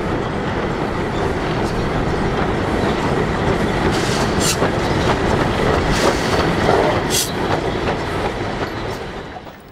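Steam train crossing a steel trestle bridge: a steady rumble and clatter of wheels on the rails, with two short high hisses about four and a half and seven seconds in. It fades out near the end.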